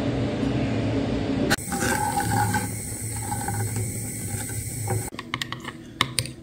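Hot chocolate being made: milk pouring onto cocoa powder in a saucepan, then a wooden spoon stirring and scraping in the pan. Near the end come a few sharp clicks of a spoon against a glass cup.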